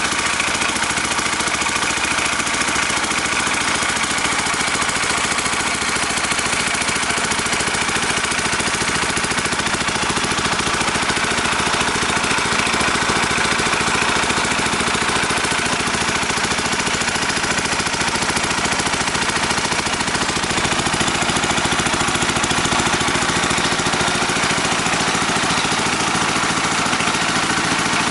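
Engine-driven groundwater well-drilling machine running steadily, with a fast, even pulsing throughout.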